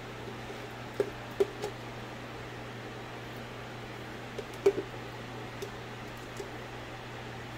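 Metal spoon scooping mayonnaise and clinking against the container and mixing bowl: a few light clicks and knocks, the sharpest about four and a half seconds in, over the steady hum of an electric fan.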